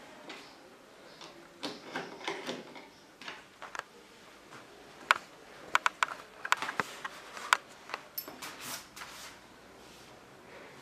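Scattered sharp clicks and knocks of cabinet panels and fittings being handled and fitted together, bunched in the middle, with a brief rustle after them.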